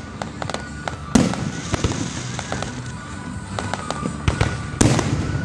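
Aerial fireworks shells bursting in a rapid string of sharp bangs and crackles, the biggest booms about a second in and near the end, with music playing underneath.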